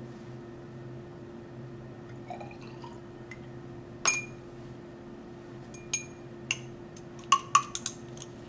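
Glass lab ware clinking as a graduated cylinder is handled against a glass beaker and stirring rod: sharp ringing taps, the loudest about four seconds in, then a quick run of taps near the end. A steady low hum runs underneath.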